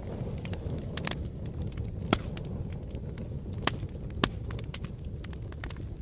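Wood fire burning: a steady low rumble of flames with scattered sharp crackles and pops, the loudest pop about two seconds in.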